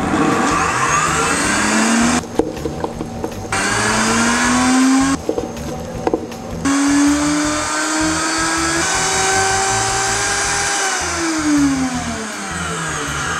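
Countertop blender motor grinding a thick paste of soaked dates, straining under the load. Its whine climbs in pitch as it spins up and works through the mix, breaks off twice for about a second with a few knocks, then falls in pitch as the motor winds down near the end.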